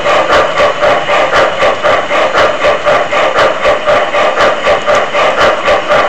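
Large-scale model steam train running along its track, heard from a car riding in the train, with an even beat of about three pulses a second over a steady running noise.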